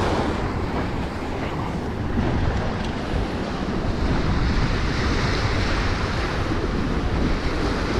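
Waves breaking and washing against the boulders of a rock jetty, a steady rush of surf that swells about halfway through. Wind buffets the microphone and adds a low rumble.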